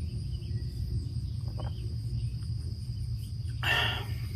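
A man drinking from a ready-to-drink coffee can in a few faint gulps, over a steady low rumble and a constant high insect-like drone. A short breathy exhale comes near the end as he lowers the can.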